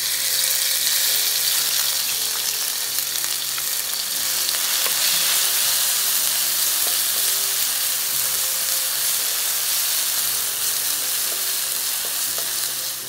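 Pounded onion, red chilli and garlic paste sizzling loudly in hot oil in a nonstick wok: a steady, dense frying hiss, with light scrapes of a wooden spatula stirring it.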